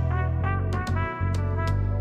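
Instrumental music: a brassy lead melody over a heavy bass line, with sharp percussion hits.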